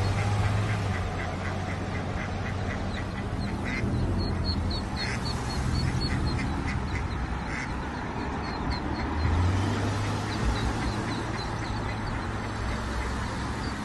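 Ducklings peeping, a stream of short high calls several times a second, with a few louder quacks from the mother duck, over a low steady hum.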